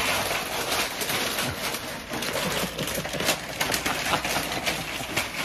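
Wrapping paper crinkling and crackling as a baby plays with it, a dense run of small crackles.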